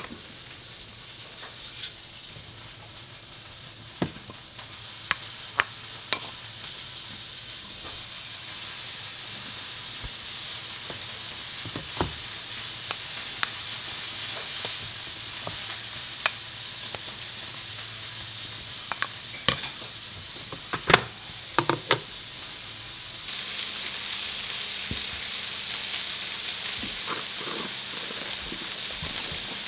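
Meat sizzling steadily on an electric hot plate, with scattered clicks and knocks of utensils and tableware. About 23 s in the sizzle steps louder and a low steady hum joins it.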